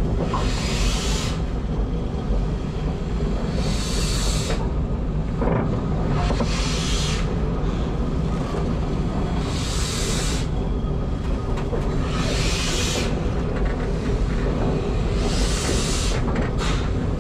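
Steam locomotive moving slowly at walking pace: a steady rumble from the wheels and motion, with a hissing exhaust beat about every three seconds, six in all.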